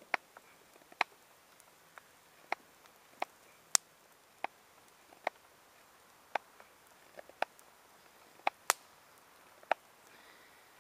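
Short, sharp clicks at irregular intervals, about one a second, from a knife cutting a notch straight down into a wooden pot-hanger stick, mixed with a small twig campfire crackling.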